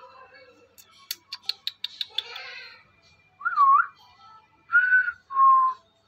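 A pet parakeet whistling three short clear notes, the first rising and falling, after a quick run of sharp clicks.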